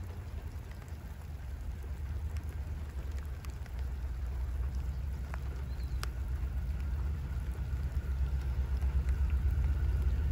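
Distant low rumble of two T-class diesel-electric locomotives approaching, growing slowly louder, with light rain and a few faint raindrop ticks.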